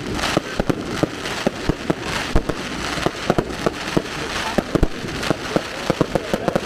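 Fireworks going off: a rapid, irregular stream of sharp bangs and crackles, several a second.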